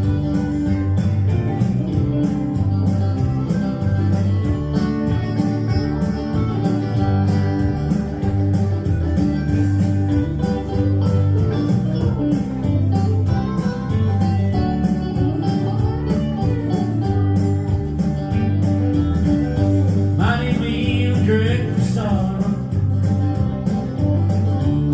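Live country band playing an instrumental break, with guitar over a steady, regular bass beat.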